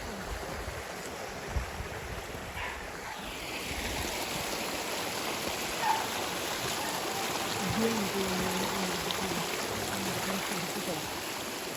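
Steady rushing water, like a mountain stream flowing.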